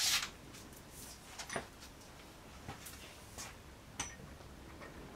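A short rustle at the start, then a few faint, scattered clicks and light knocks: a person moving about and handling a clamped wooden lamination on its threaded-rod jig.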